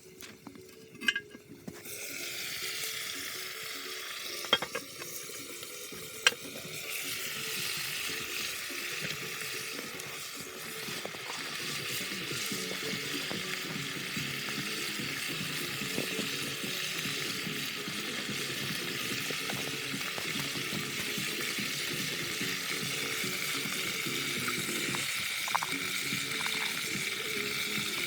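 Food frying in a hot cast iron pot over a campfire: a steady sizzle that starts suddenly about two seconds in and grows fuller a few seconds later. A few sharp knocks come in the first several seconds.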